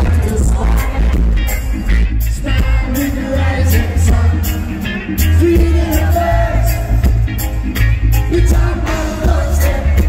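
Live reggae band playing through the PA, with a man singing lead into a microphone over a heavy pulsing bass line, drums and electric guitar.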